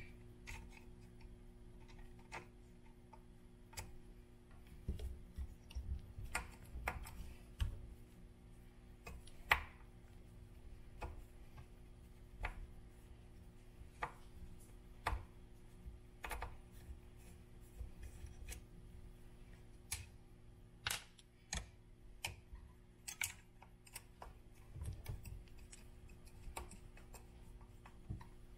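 Faint, irregular clicks and taps of a hex driver and small plastic parts as screws are backed out of a Traxxas Slash 4x4's plastic differential case.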